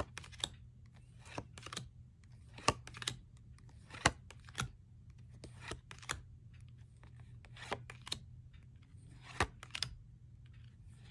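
Tarot cards being flipped through one at a time, each card slid off the deck and laid on the pile with a short, sharp papery click. The clicks come irregularly, about one a second, sometimes two close together, over a faint steady low hum.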